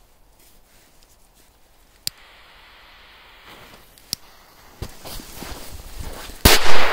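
Two sharp clicks, then a lit firework fuse hissing and crackling louder, ending in a sharp, very loud bang near the end.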